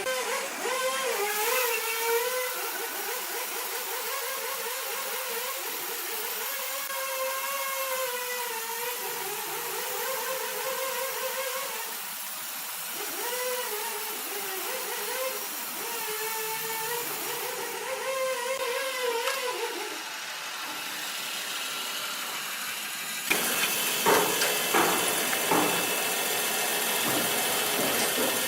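Sawmill machinery running with a whine that wavers and dips in pitch again and again, as a saw does under changing load while cutting. About 23 s in, it switches abruptly to louder, noisier machine sound with knocks and a hiss.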